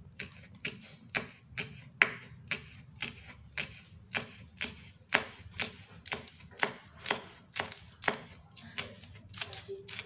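Kitchen knife slicing spring onions on a wooden cutting board: a steady run of sharp chops, about two a second.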